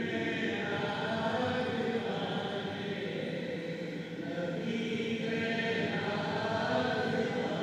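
A group of men chanting the refrain of an Urdu devotional kalam together, softly and without instruments, on long held notes.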